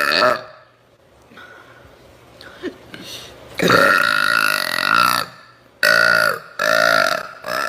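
A woman burping: the tail of one burp at the start, then one long, drawn-out burp about halfway through, followed by three shorter burps in quick succession near the end.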